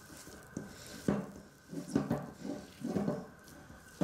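Hands kneading and turning sticky, buttery dough in a glass bowl: a run of soft, irregular thumps and squelches as the dough is pressed and slapped against the bowl.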